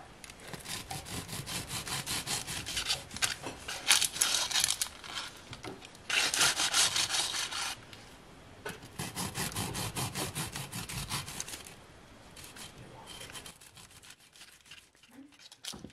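Bread knife sawing through a loaf of walnut-topped banana bread on a wooden cutting board in quick back-and-forth strokes, louder around four and six seconds in, then fading out near the end.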